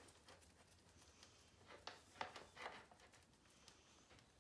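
Near silence with a few faint clicks and taps, clustered about two seconds in, from a 5 mm Allen wrench and fender bolts being handled.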